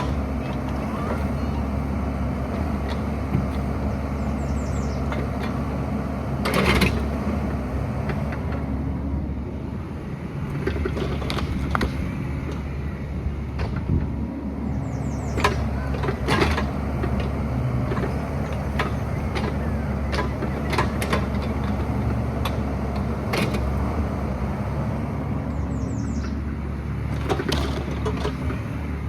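Excavator's diesel engine running steadily under work, with a few sharp knocks and clanks scattered through.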